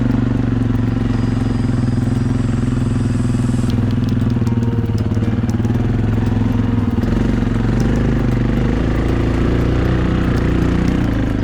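Quad bike (ATV) engine running steadily, with an even, low engine note.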